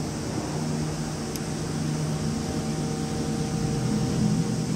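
A steady low mechanical hum with a few held tones, over a constant high hiss.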